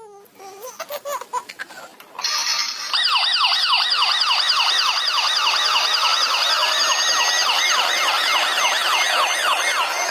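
A few clicks, then about two seconds in a toy emergency vehicle's electronic siren starts: a fast yelp sweeping up and down about three times a second.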